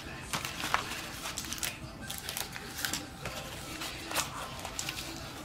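Plastic-wrapped cardboard packs of fireworks rockets being handled and stacked on top of one another: scattered crinkles, rustles and light taps.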